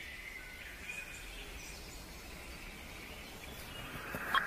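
Faint outdoor ambience: a low steady hiss with a few faint, high bird chirps in the first second or so, and a short click near the end.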